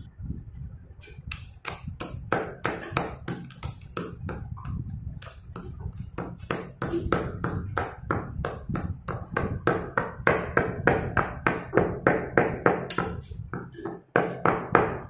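Stone pestle pounding slate pencils in a marble mortar, a steady run of sharp knocks about three a second as the pencils are crushed toward powder. The pounding starts about a second in and breaks off briefly near the end.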